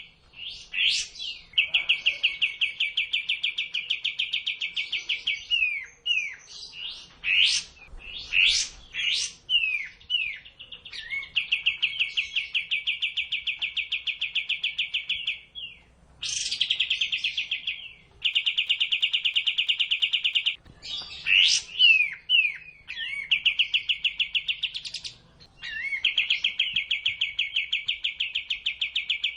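Songbird song played as a training recording: long, very fast rattling trills, each held for several seconds, alternating with short, sharp whistled chirps that sweep up and down.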